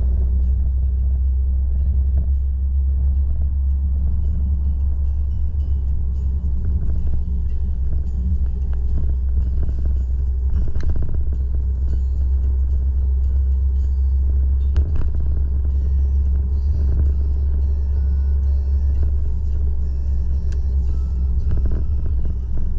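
A steady, loud low rumble with no breaks, with a few faint clicks over it.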